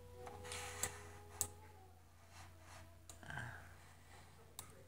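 Computer mouse buttons clicked a few times: faint sharp clicks, two close together about a second in and one near the end.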